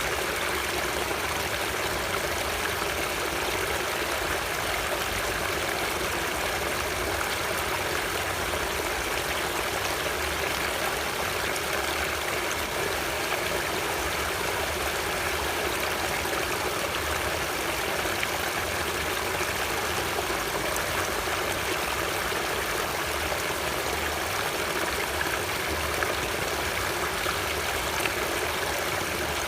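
Flowing stream water, rushing and burbling steadily.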